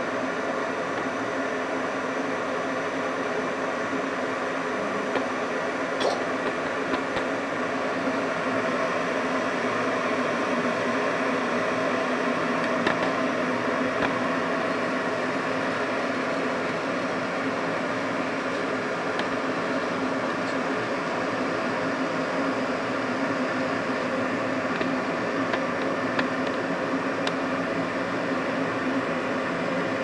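Polaris PWK 1775CGLD glass electric kettle heating water: a steady hiss and rumble as small bubbles form on the heating plate and collapse, the stage before a full boil. A few faint ticks sound now and then.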